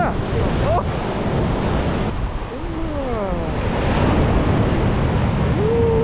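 Sea waves washing up over a sandy beach in a continuous foamy rush, surging louder about four seconds in as a wave runs up the sand.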